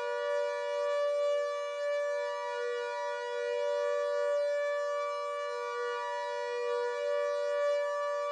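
Synthesized civil-defence siren imitating a Klaxon Cs8 and Carter siren, holding a steady two-note chord without rising or falling, as in a steady alert signal.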